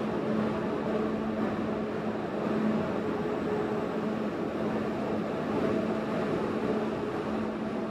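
Steady machinery hum on an underground train platform, from the parked SRT high-speed train's equipment and the station's ventilation. It has a constant low drone under an even rushing noise.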